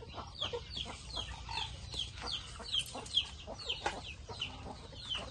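A flock of poultry: chicks peep over and over in short, high, falling notes, about three a second, while chickens give occasional low clucks.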